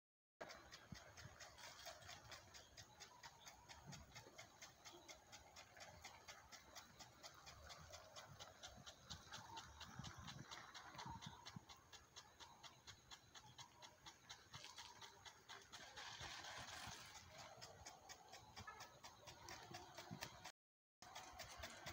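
Faint, even ticking of an agricultural water sprinkler, several ticks a second, over a light hiss of water spray. The sound cuts out briefly near the end.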